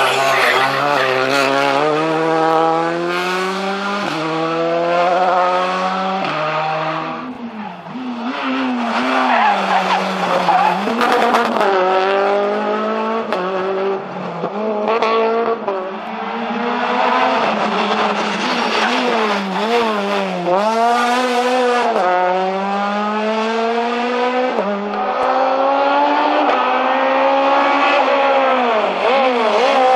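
Rally cars, a Renault Clio among them, driven flat out past the spectators. Each engine revs up hard and drops in pitch at quick gear changes, several times over. There are sharp lifts and blips of the throttle between runs.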